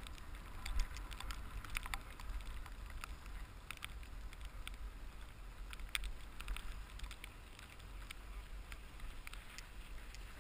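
Ski bike's skis sliding over packed snow: a steady hiss with a low rumble and scattered sharp ticks and rattles as the skis and frame chatter over the groomed surface.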